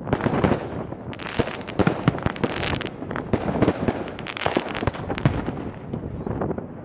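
Fireworks display: aerial shells bursting in quick succession, a dense run of overlapping bangs and pops, thickest in the first half.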